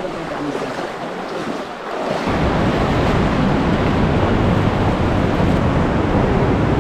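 River water rushing through a canyon, becoming suddenly much louder and closer a little over two seconds in, then a loud, even rush.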